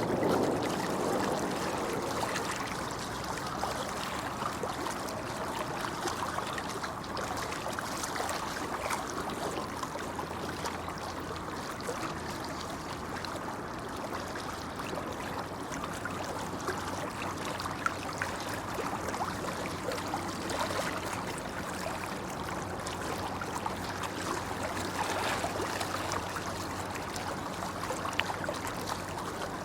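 Shallow babbling brook running steadily: a continuous rush of flowing water.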